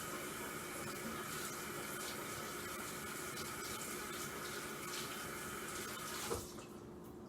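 Water running steadily from a sink tap as hands are washed under it, then the tap is shut off with a short knock about six seconds in.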